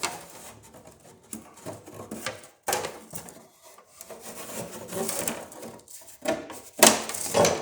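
A John Deere 175 riding mower's plastic panel being pulled off, with the plastic knocking, rattling and scraping as it comes free, and the loudest knocks near the end.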